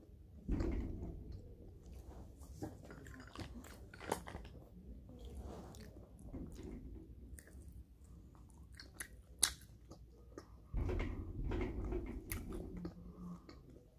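Close-up biting and chewing of a meat stick, with many short mouth clicks and a few low rumbles.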